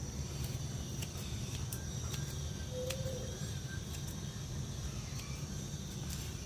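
Steady outdoor background: an even high drone like insects over a low rumble, with scattered light clicks.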